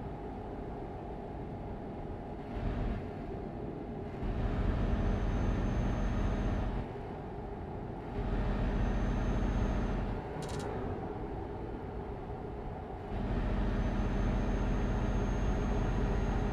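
A road vehicle running, its low rumble growing louder three times for a couple of seconds each, with a faint high whine during the louder stretches. There is a single sharp click about ten seconds in.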